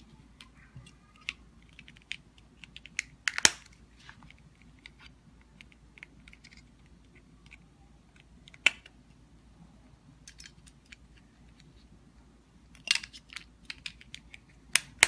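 Scattered small plastic clicks and handling noises from a lock's remote control as a CR2032 button cell is fitted, with sharper snaps about three and a half and nine seconds in and a quick run of clicks near the end.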